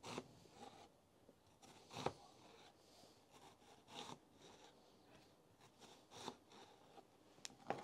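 Faint kitchen knife cuts through a peeled onion onto a plastic cutting board: soft crunches, each ending in a sharp tap on the board, the clearest about every two seconds.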